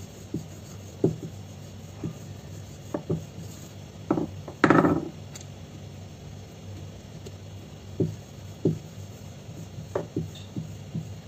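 Wooden rolling pin rolling out pani puri dough on a round rolling board, with irregular short knocks as the pin works over the board, and one louder clatter about halfway through.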